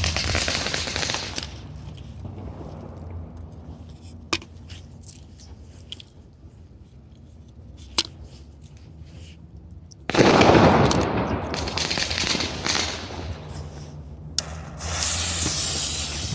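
Jorge Tornado firework rockets: single sharp bangs about four and eight seconds in, then a sudden loud rushing hiss about ten seconds in and another about fourteen seconds in, as rockets go off.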